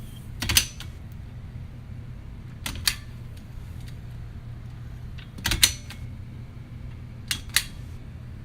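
Baby safety gate being opened and closed: latch clicks and rattles come in short pairs, four times, about every two and a half seconds.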